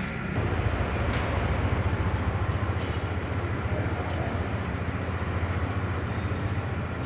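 Yamaha MX King's 150 cc single-cylinder four-stroke engine running steadily with an even, fast low pulse. It is the engine noise the uploader calls common on the MX King, a fault to have checked before it gets worse.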